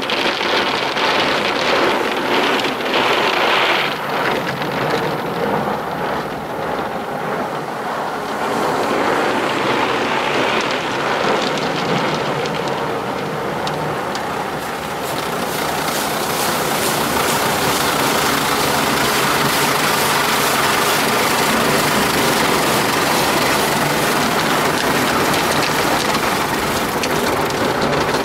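Water and soapy spray from an automatic car wash pelting a Mercedes 190's windscreen and body, heard from inside the cabin as a loud, steady rain-like rush. It turns harsher and hissier about halfway through.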